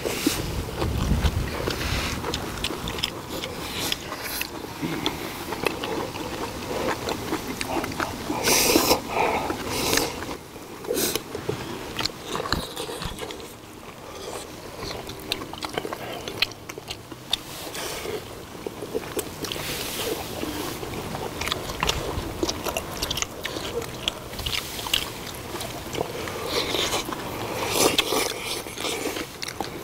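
Close-miked eating: chewing, smacking and slurping of stir-fried pork with kimchi, with chopsticks clicking and scraping on bowls and the cast-iron cauldron-lid pan. Louder bursts come about 9 s in and again near 20 s and 28 s.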